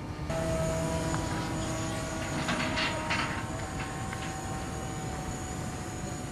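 Radio-controlled model aircraft motor running with a steady whine, with a few short hissing bursts near the middle.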